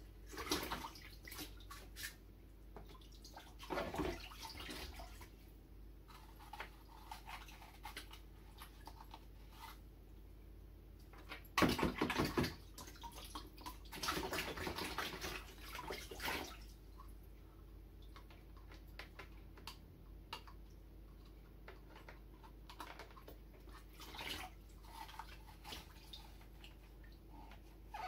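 Water sloshing and dripping in a plastic bucket as hands wash and squeeze aquarium filter sponges, in irregular bouts of splashing with small drips between; the loudest splashing comes about twelve seconds in.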